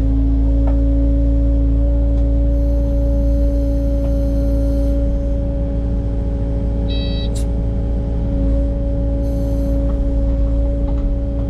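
Excavator running steadily under work, a deep engine rumble with a constant hum over it, and a couple of brief high squeals about seven seconds in and near the end.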